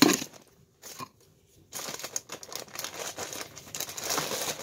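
Plastic mailing bag being handled and torn open by hand. A short loud rustle at the start, a brief lull, then steady irregular crinkling and crackling of the plastic.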